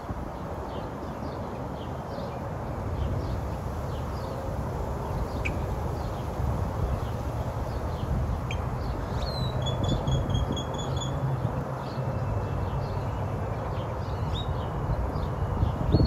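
Outdoor ambience: a low steady rumble with scattered chirps of small birds, and a short trill of about seven quick notes about ten seconds in.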